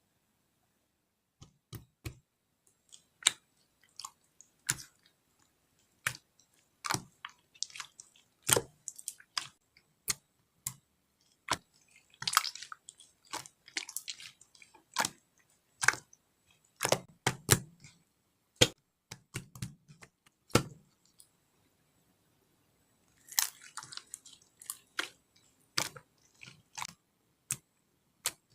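Slime being squeezed and pressed by hand, giving sharp irregular clicking pops as air pockets burst, with a couple of short runs of wet crackling.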